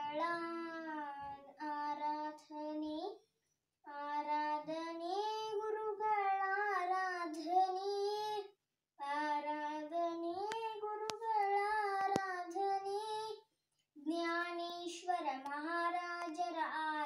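A young girl singing a Kannada Jain devotional bhajan unaccompanied, in four long held phrases with short breaths between them.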